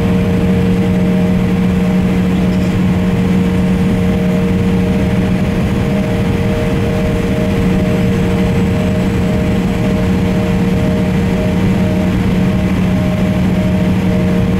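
Embraer E170's turbofan engines running at idle, heard inside the passenger cabin as a steady drone with a constant low hum and a few steady whining tones.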